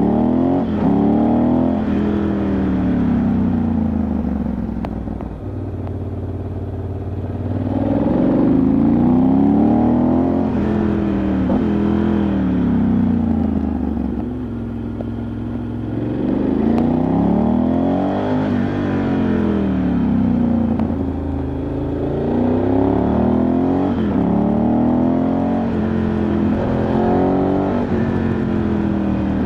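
Ducati Multistrada 1100S's air-cooled V-twin engine heard from on board. It revs up and eases off again and again, its pitch rising and falling in several swells, with a rush of wind and road noise underneath.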